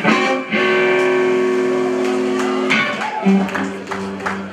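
Blues band playing live on electric guitar: a chord struck sharply and left ringing, then a run of repeated lower notes from about three seconds in.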